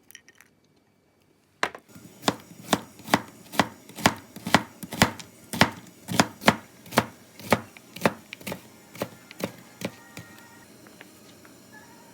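A knife chopping food on a cutting board in a steady rhythm, about two chops a second. It starts about two seconds in and stops shortly before the end.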